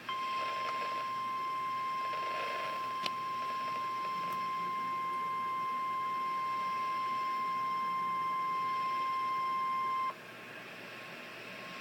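NOAA Weather Radio warning alarm tone: a single steady beep of about 1 kHz held for about ten seconds, then cut off abruptly, over faint radio hiss. It signals that a warning message follows, here a severe thunderstorm warning. A small click sounds about three seconds in.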